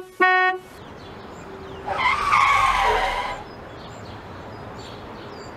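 Two short electronic jingle notes end right at the start, then outdoor ambience with a vehicle going by, louder for about a second and a half from about two seconds in.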